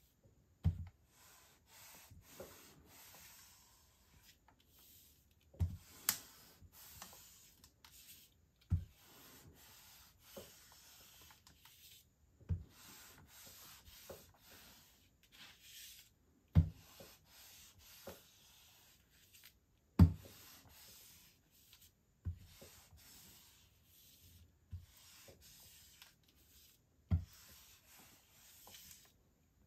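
Steam iron sliding back and forth over a plastic sheet laid on Perler beads, fusing them: rubbing strokes a second or two long, one after another. A dull knock comes every few seconds and is the loudest sound.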